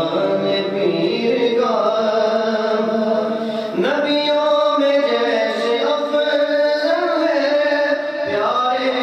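Man singing a nasheed into a microphone, holding long notes that slide from one pitch to the next about every two seconds.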